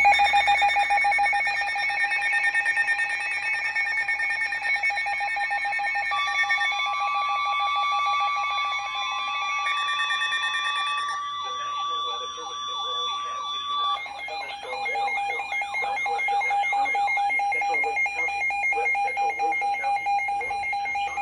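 Several emergency weather alert tones sounding at once for a severe thunderstorm warning: steady and rapidly pulsing electronic tones overlap. The mix changes about 6, 11 and 14 seconds in, with a warbling tone partway through.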